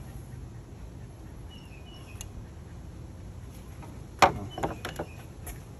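A sharp hard clack about four seconds in, followed by a quick run of lighter clicks and knocks: tools and a removed ignition coil being handled and set down in an engine bay, over a steady low hum.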